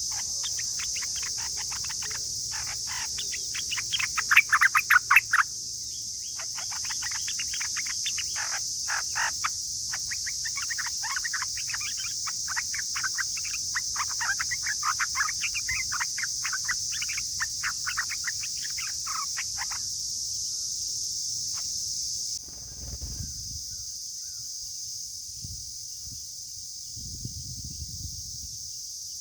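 Yellow-vented bulbuls calling in rapid chattering runs, loudest about four to five seconds in, with the calling stopping about twenty seconds in. A steady high insect drone runs underneath, and a few low thumps come near the end.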